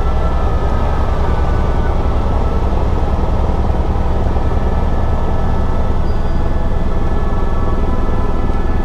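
Helicopter in level flight: the main rotor and engine run steadily, giving a dense, rapidly pulsing low throb with a thin steady whine above it.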